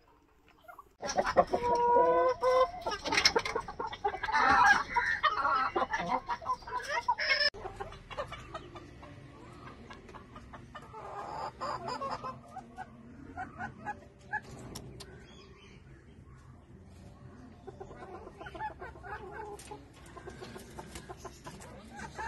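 Chickens clucking and calling: loud for several seconds, then cut off suddenly, followed by quieter, scattered clucking.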